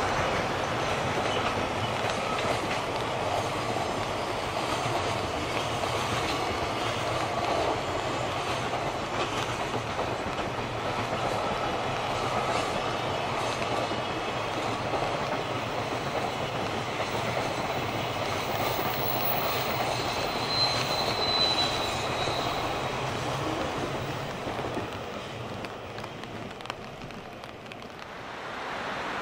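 Container flat wagons of a freight train rolling past on steel rails, with a brief high wheel squeal about two-thirds of the way through. The noise fades near the end as the last wagon goes by.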